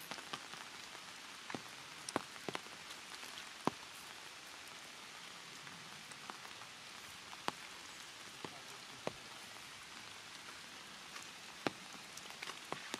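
Raindrops pattering on leaves and ground over a steady hiss, with irregular sharp drips every second or so.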